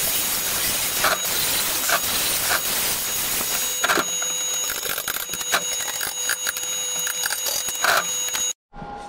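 Angle grinder with a flap disc grinding stainless steel welds: a loud, harsh steady hiss with a thin whine and a few scattered knocks, cutting off suddenly near the end.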